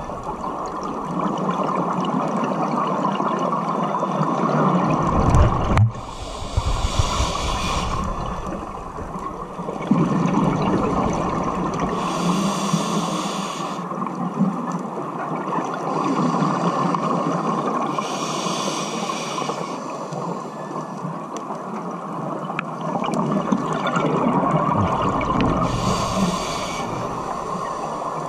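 Scuba diver breathing through a regulator underwater: each inhale draws a hiss of about two seconds from the demand valve, about every six seconds, and exhaled bubbles rush and bubble in between, loudest about five seconds in.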